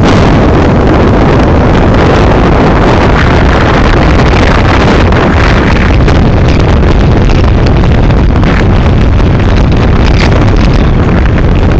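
Loud, steady rushing noise of a moving car, wind and road noise overloading the microphone; it cuts in suddenly.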